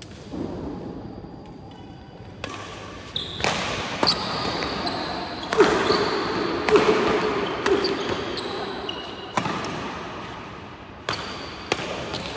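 Badminton rally: rackets strike the shuttlecock about ten times, roughly once a second, each hit ringing on in the hall. Short high squeaks of shoes on the court floor come between the hits.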